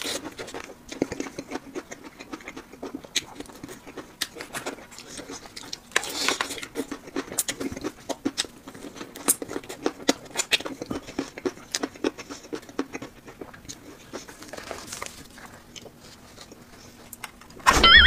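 Close-up chewing of fried chicken: a run of small irregular crisp clicks and wet mouth sounds. Right at the end comes a short, louder sound that rises in pitch.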